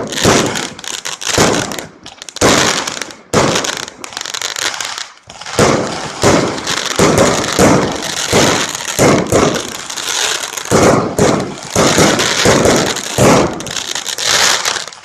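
Aerial fireworks going off close by: loud bangs and crackling bursts, with short gaps in the first five seconds, then a near-continuous barrage of about two or three bangs a second.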